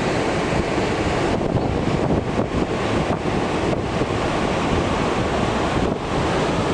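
Surf washing onto a sandy beach, with wind buffeting the microphone in a steady low rumble.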